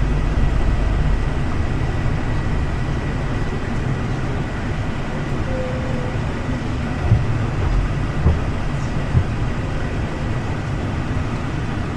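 Passenger train running: a steady low rumble with a faint steady whine, and three short knocks between about seven and nine seconds in.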